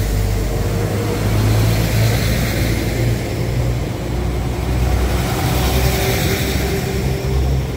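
Diesel locomotive engine running, a steady deep rumble with noise spread over it.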